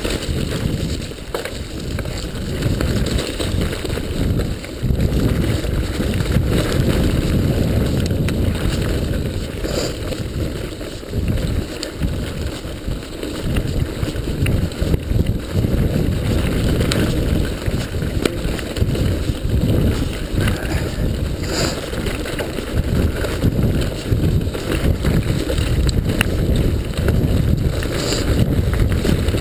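Mountain bike riding fast down a rough dirt trail: a continuous low rumble of tyres, suspension and wind buffeting the microphone, rising and falling with the terrain, with scattered clicks and knocks as the bike goes over rocks and roots.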